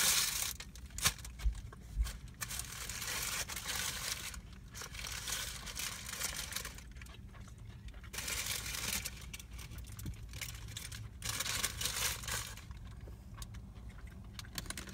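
Chewing a mouthful of fried chicken sandwich with crunchy jalapeño bits, in soft noisy stretches, with light crinkling of the sandwich's paper wrapper and a few small clicks in the first couple of seconds.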